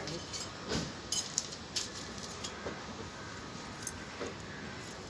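Light metallic clinks and ticks, several scattered short ones, from diesel engine piston rings being handled and laid out.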